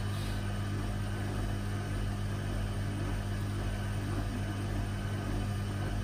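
Hoover Zodiac 12 front-loading washing machine running in its rinse stage: a steady, even hum with no knocks, surges or changes in pitch.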